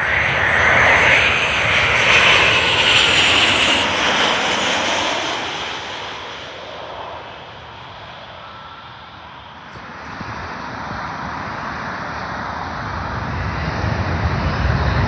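Twin-engine jet airliner passing low overhead on final approach: loud jet engine noise that peaks in the first few seconds and then fades away. A lower rumble builds again near the end.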